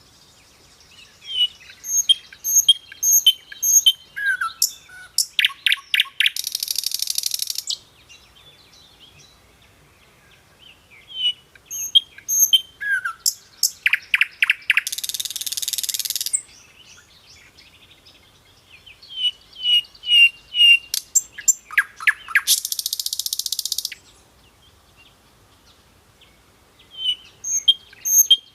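Common nightingale singing in separate phrases with pauses of a few seconds between them: three full phrases and the start of a fourth near the end. Each phrase strings together clear repeated whistled notes and clicks and ends in a fast, harsh trill.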